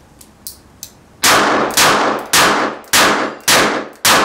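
Kimber K6s six-shot stainless .357 revolver firing six quick shots about half a second apart, each report ringing off briefly, fired from inside a wooden shooting shed. Three faint sharp ticks come before the first shot.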